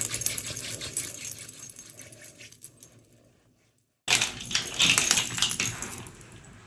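Rapid jingling clatter of many small hard objects in two separate bursts. The first fades out over about three seconds, then after a moment of silence a second burst starts suddenly about four seconds in and fades away.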